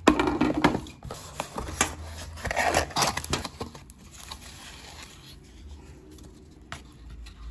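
Cardboard parts box being opened and a foam packing sheet lifted off a chrome trim piece: rustling and scraping with sharp clicks in several loud bursts over the first three or so seconds, then quieter handling.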